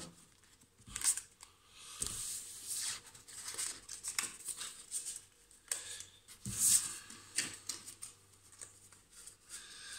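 A deck of cards being shuffled and handled by hand: irregular swishes with a few sharper snaps, the clearest about one, two and six and a half seconds in.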